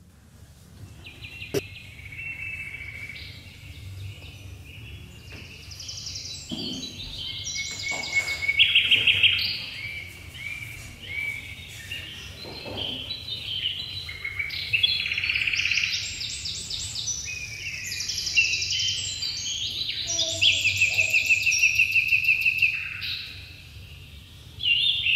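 Many high bird-like chirps, warbles and trills, overlapping in layers. The sound begins about a second in and grows louder in waves, around eight seconds in and again in the second half.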